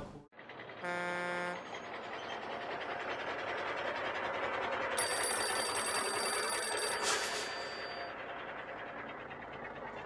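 Animated end-card sound effects: a short steady tone about a second in, then a vehicle-like rushing noise that swells and fades, with an old-style telephone bell ringing for about two seconds in the middle.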